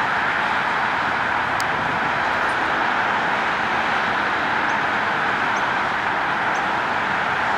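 Boeing 737's twin turbofan engines at takeoff thrust during the takeoff roll, heard from beside the runway as a steady, even rush of jet noise.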